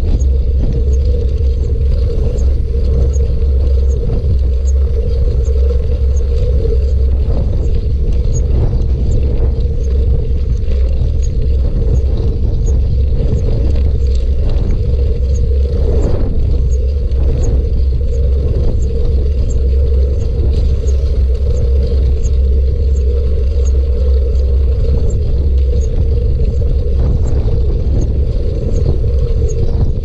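Steady rumble of wind and tyre noise from riding along on a bicycle, with a faint high tick repeating a little more than once a second.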